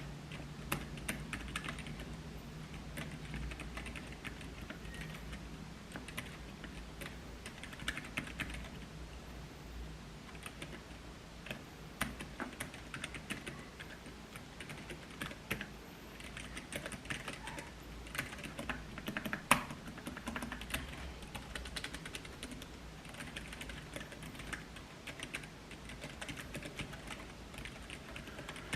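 Typing on a Keychron K3 V2 low-profile mechanical keyboard with optical red linear switches of about 40 g: a steady run of light key clicks, with one louder clack about two-thirds of the way through.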